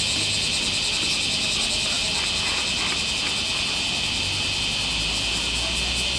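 A dense chorus of summer cicadas: a loud, steady, high shrill with a faint pulsing beat, over a low steady hum.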